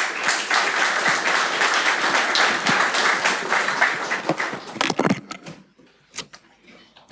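Audience applauding: many hands clapping together, fading out about five seconds in, followed by a few isolated clicks.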